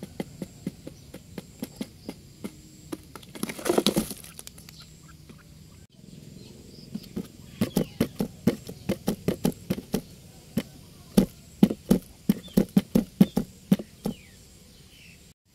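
Sharp taps and knocks on a cardboard box trap: scattered taps with a brief rustle about four seconds in, then after a break a quick run of taps, two or three a second, from about seven to fourteen seconds.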